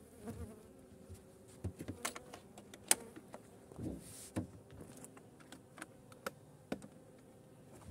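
Honeybees buzzing faintly around an opened hive, with scattered light knocks and clicks, the loudest about three seconds in, as a gloved hand settles and presses down the hive lid.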